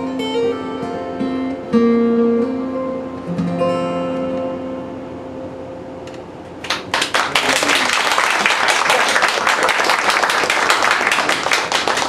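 Acoustic guitar playing the closing notes of a song: single picked notes and chords left to ring. About seven seconds in, audience applause breaks out and continues.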